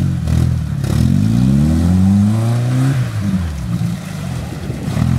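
Small 4x4 off-roader's engine revving hard under load as it claws through deep mud, the pitch climbing for about two seconds, then dropping sharply about three seconds in and running lower and uneven.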